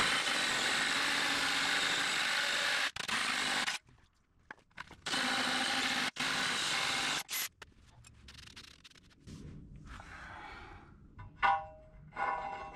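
Cordless drill driving a hole saw into the quarter-inch wall of 5-inch square steel tubing: a steady cutting run of about four seconds, a short pause, then a second run of about two seconds. Near the end, a few short ringing metal clinks as a steel bushing is set into the fresh hole.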